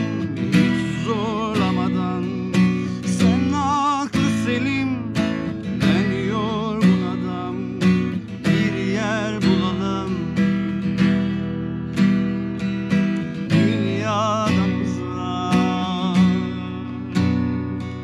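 Acoustic guitar strummed steadily while a man sings a slow melody, his held notes wavering.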